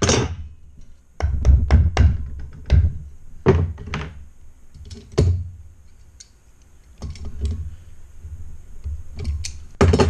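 A wooden block knocked against the end bell of a small electric motor, short dull thunks coming in several quick clusters, during reassembly of the motor.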